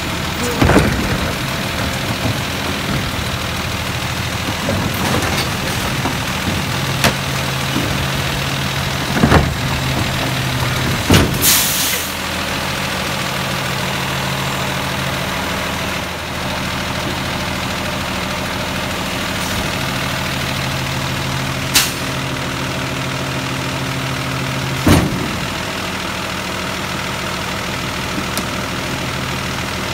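Peterbilt 320 garbage truck's diesel engine idling steadily, with a low hum coming in for two long stretches. Five sharp knocks and clunks of bins and plastic jugs being handled punctuate it, one near the middle with a short hiss.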